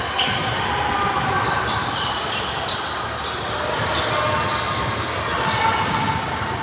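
Basketball game play: a ball bouncing on the court with short knocks scattered throughout, over a steady chatter of many voices from players and spectators.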